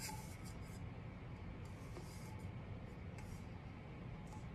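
Faint, irregular soft rubbing strokes from working alcohol ink over a tumbler by hand, over a steady low background hum.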